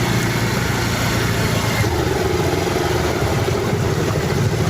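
A motor vehicle engine running steadily, with a constant rushing noise over it.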